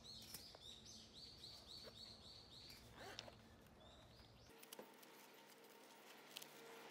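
Faint bird song: a quick run of repeated chirping notes that stops about four and a half seconds in, followed by a few soft clicks.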